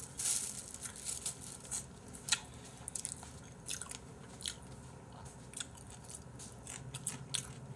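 Crispy fried chicken being bitten and chewed close to the microphone: scattered short crunches and crackles, a few more than a second apart.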